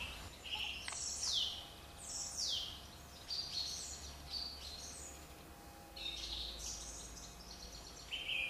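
Songbirds singing, with clear high whistles that sweep steeply downward about a second and two and a half seconds in, and a quick run of short repeated notes near the end.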